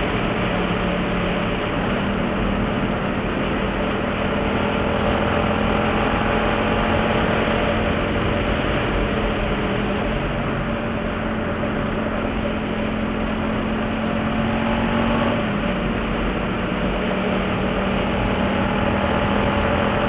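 Yamaha MT-07's parallel-twin engine with a Jeskap GP carbon exhaust running steadily at cruising speed in fifth gear, its note shifting only slightly a few times, over a steady rush of wind and road noise.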